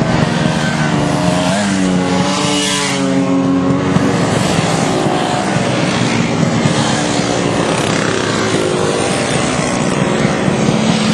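A column of two-stroke Vespa and Lambretta scooters riding past one after another, many small engines running at once. The pitch drops as each one goes by, most clearly about two to three seconds in.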